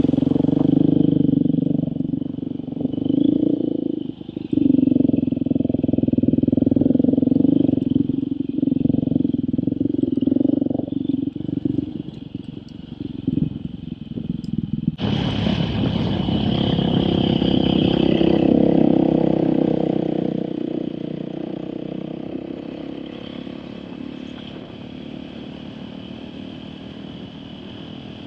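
Off-road motorcycle engine running on a dirt trail under changing throttle, its note dipping and picking up again several times. About halfway the sound changes abruptly, and then the engine slowly fades away.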